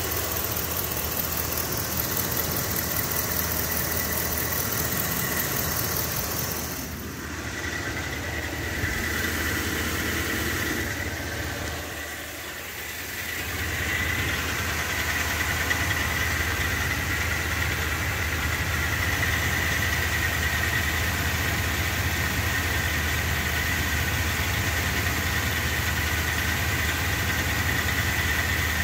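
A brand-new engine idling steadily, with a constant high whine over the running that grows plainer in the second half. The owner wonders whether the whine is just the cooling fan.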